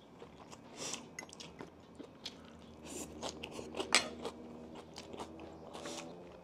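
Close-miked chewing and biting of crispy fried chicken tenders and coleslaw: scattered crunches and wet mouth sounds, busiest about three to four seconds in.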